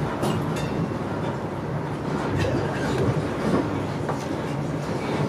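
Steady interior running noise inside a coach of an InterCity 125 (HST) travelling at speed: a continuous wheel-on-rail rumble with a few faint clicks over the rails.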